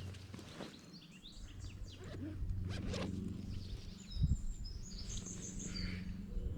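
A bag zipper being pulled open in quick rasps, as a camera is taken out of its bag. High bird chirps follow near the end.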